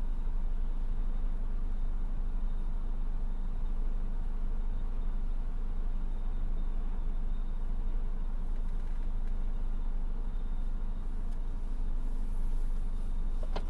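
Diesel engines of large Hitachi hydraulic excavators and dump trucks running together in a steady low rumble. A short high chirp sounds near the end.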